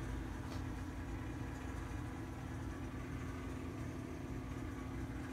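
A steady low hum with one constant faint tone underneath it, unchanging throughout.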